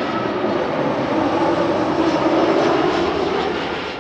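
Jet airliner passing low on final approach to land, its engines making a steady roar that swells to a peak a little past halfway and then begins to fade.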